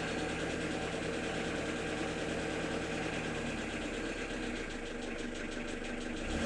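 Car engine running with a steady, regular knock from inside it. It sounds like connecting-rod knock, which the owner rules out because he has opened up and checked the rod bearings.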